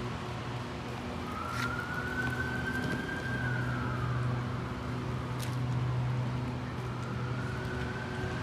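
Emergency vehicle siren in a slow wail: it rises about a second in, holds, falls away, then rises again near the end. Under it runs a steady low hum.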